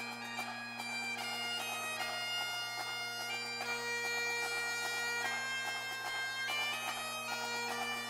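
Bagpipe music: a steady drone under a chanter melody that steps from note to note.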